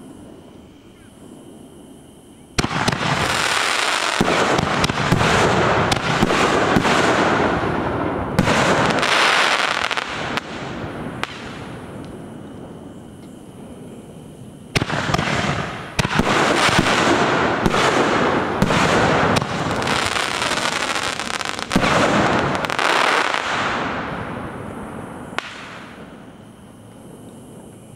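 Consumer firework cakes going off in two long volleys of rapid bangs and crackling. The first starts suddenly a few seconds in and lasts about nine seconds. The second starts about halfway through and fades out near the end.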